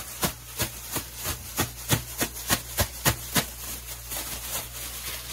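Plastic bag of chicken pieces and karaage coating flour shaken by hand, crinkling in regular shakes about three a second, then stopping about three and a half seconds in.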